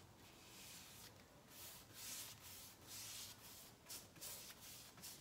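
Paintbrush bristles drawn lightly over a painted kitchen cabinet panel, laying off oil-based paint: faint, repeated soft swishes, about one or two strokes a second.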